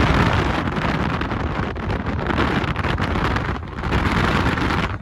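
Heavy wind buffeting the microphone: a loud, steady rushing noise.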